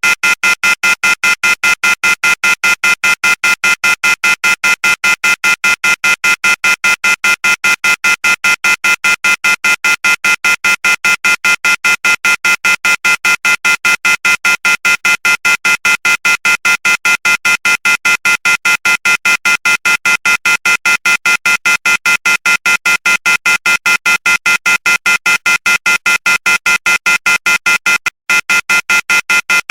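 Electronic phone ringing tone: a loud, buzzy tone pulsing rapidly and evenly, about five pulses a second, with one brief break near the end.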